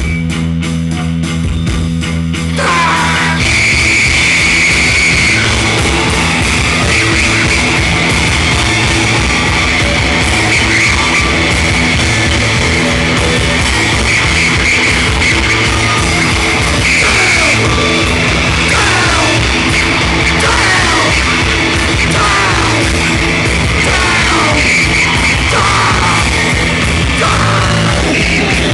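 A rock band playing loud: a chugging distorted riff, then from about two and a half seconds in a dense wall of distorted noise with squealing, sliding feedback-like tones over a steady pounding rhythm.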